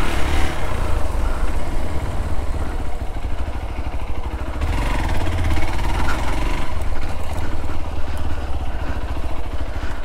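Royal Enfield Himalayan 450's single-cylinder engine running steadily as the motorcycle is ridden.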